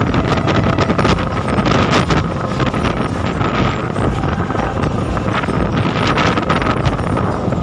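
Strong storm wind buffeting the microphone: a loud, steady rush with a deep rumble and gusts, and a faint steady whine under it.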